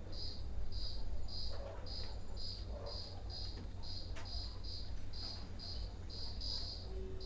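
Crickets chirping in an even, high-pitched rhythm of about two chirps a second, over a steady low rumble.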